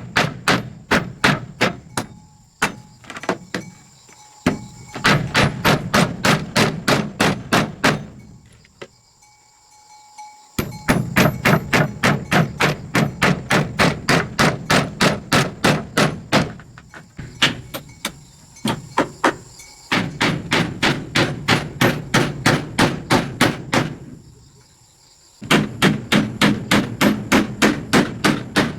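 A hammer striking repeatedly and fast, about three to four blows a second, in long runs with a couple of short pauses.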